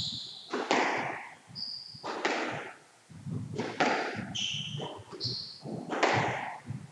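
A squash rally: the ball is struck and hits the walls with a sharp knock every second or two, each ringing briefly in the court. Short high-pitched squeaks of court shoes on the floor come between the strikes.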